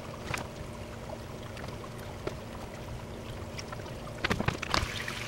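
Aquarium filter and aeration running with a steady low hum and water noise, with a few small clicks. A quick cluster of knocks and clatter from handling at the tank, about four seconds in, is the loudest part.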